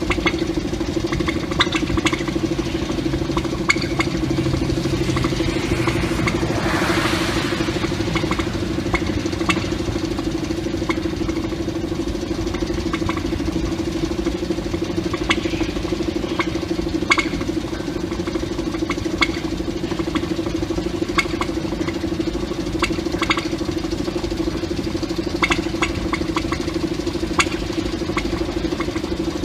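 1950s diesel shunting locomotive idling with a steady drone and irregular pops from its engine, the 'poppity pop pop' sound. A brief hiss about seven seconds in.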